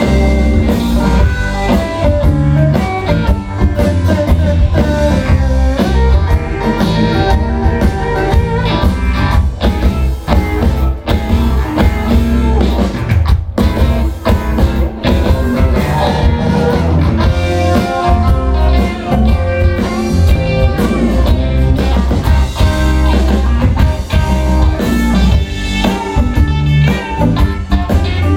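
Live country-rock band playing, with guitars, bass and drum kit.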